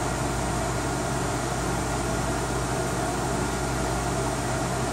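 Cooling fans of a newly built desktop PC running steadily during its first power-up, an even whir with a low hum and a faint steady tone.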